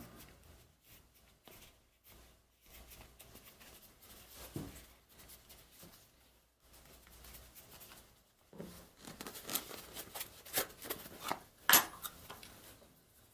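Leather sheath handled at the bench: faint rubbing and rustling of the leather, then a run of sharp clicks and taps from about two-thirds of the way in, the loudest near the end.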